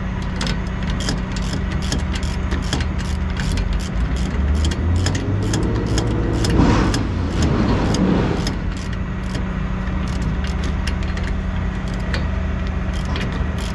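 A heavy truck's diesel engine idling steadily, with scattered light metallic clicks while an air fitting is screwed into the air-dryer plug port. A swell of louder noise comes about six to eight seconds in.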